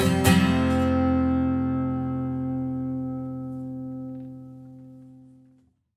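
Acoustic guitar's final strummed chord, the closing chord of the song, ringing out and slowly dying away. The ringing cuts off suddenly about five and a half seconds in.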